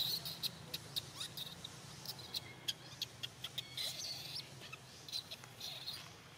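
Baby long-tailed macaque giving short, high-pitched squeals, loudest right at the start and again about four seconds in, crying for milk. Many sharp little clicks are scattered through it.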